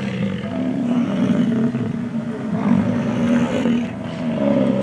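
American bison bull bellowing in the rut: a low, guttural rumble that runs on in long stretches with a brief pause about four seconds in. Bulls vocalise continually through the breeding season, rumbling at one another.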